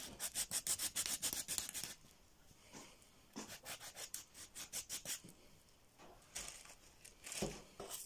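Paye being scrubbed back and forth against a rough stone surface to clean it, in quick rasping strokes. There are three runs of strokes, the first and fastest lasting nearly two seconds, the others starting about three and a half and six and a half seconds in.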